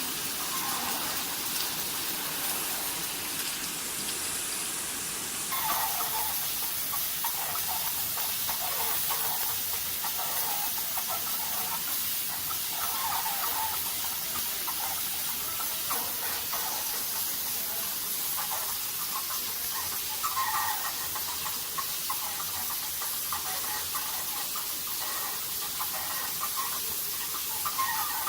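Fully automatic high-speed bottle-cap assembly machine running: a steady hiss with short bursts every few seconds.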